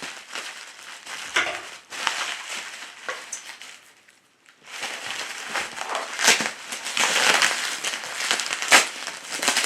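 Bubble wrap and plastic packaging being handled and pulled open, a continuous crinkling and crackling with sharp snaps. It stops briefly about four seconds in, then resumes louder.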